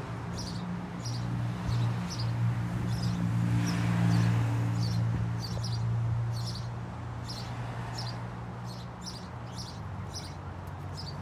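A low, steady engine hum that swells around four seconds in and then eases off, under a short high chirp that repeats about every two-thirds of a second.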